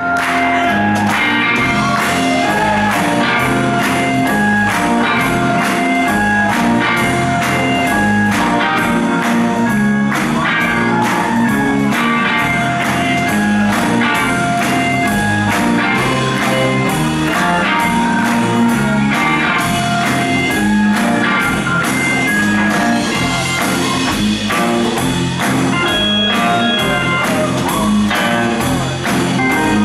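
Live rock band playing, heard from the audience: electric guitars, bass, keyboard and a drum kit keeping a steady beat.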